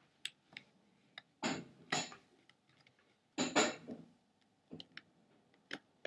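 Small metallic clicks and a few louder scraping rasps, around a second and a half in, at two seconds and from about three and a half seconds in, as the screws of the metal bracket in a mid-2007 13-inch MacBook's battery bay are undone.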